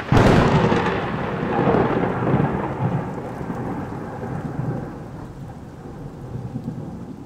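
Thunder: a sharp thunderclap at the start, then a long rolling rumble that slowly fades away.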